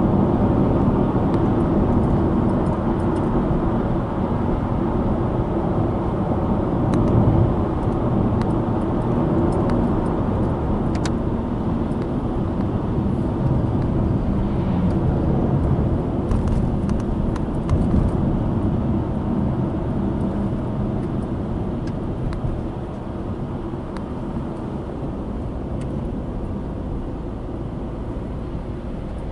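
Subaru Impreza Sport 1.6i-L on the move downhill: steady rumble of tyres on the road and its FB16 1.6-litre flat-four engine, with a few faint ticks. The level eases a little in the last several seconds.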